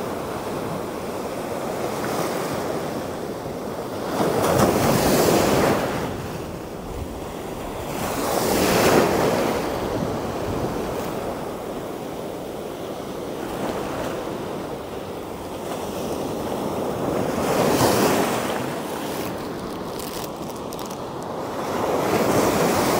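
Ocean surf washing up and over the sand at the water's edge, swelling louder about four times as waves run in and draining back between them.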